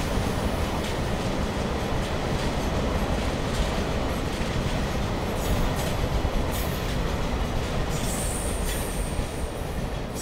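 Green tank wagons of a freight train rolling past, a steady rolling noise that eases near the end as the last wagon goes by. A thin high ringing sets in about eight seconds in.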